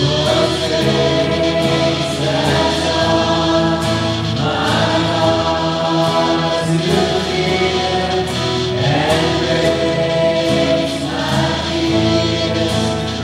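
Live contemporary worship song: two women singing together into microphones over acoustic and electric guitar.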